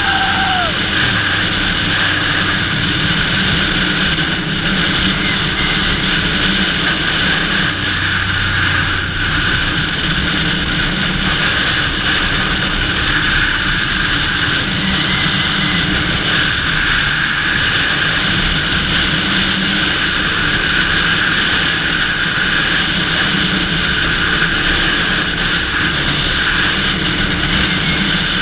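1988 Ducati Paso 750's V-twin engine running at a steady cruise, mixed with wind rushing over a helmet-mounted camera at speed.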